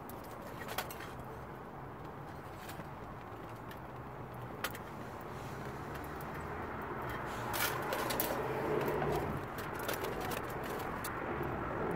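Wood fire crackling in a small folding metal camp stove, with a few sharp pops over a steady low rumble. In the second half, a busier, louder stretch with metallic clinking comes as the thin aluminium windscreen is shifted and laid over the fire.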